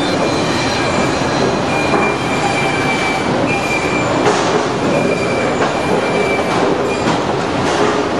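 Woodworking factory machinery running: a loud, dense, steady din with thin high whines that come and go every second or so.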